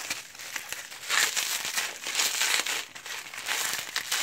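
Plastic packing wrap crinkling and rustling in irregular bursts as a beer can is pulled out of a shipping box and unwrapped.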